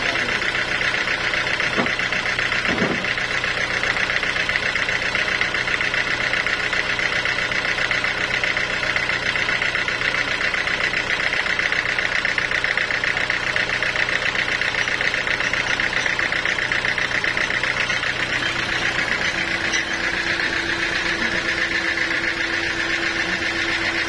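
Band sawmill's engine running steadily, idling with a fast, even knocking beat while the blade is not cutting. A further steady tone joins in about three-quarters of the way through.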